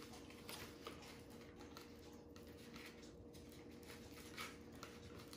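Near silence: faint rustles and light ticks of wool and a paper plate being handled as a knot is tied, over a faint steady hum.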